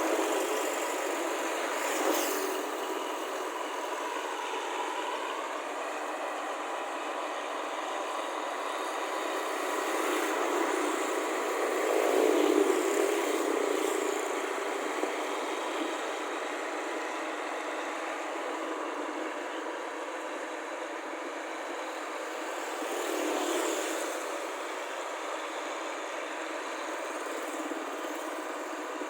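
Steady engine noise from motor vehicles, growing louder about twelve seconds in and again about twenty-three seconds in.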